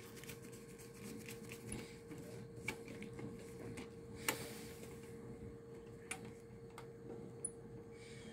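Faint clicks and scrapes of a screwdriver turning the terminal screw of a GFCI receptacle to clamp the neutral wire, with the sharpest click about four seconds in. A steady faint hum runs underneath.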